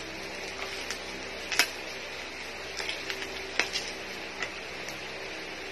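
Plastic gift wrapping being handled and unwrapped by hand: scattered crinkles and small sharp clicks, the loudest about one and a half seconds in.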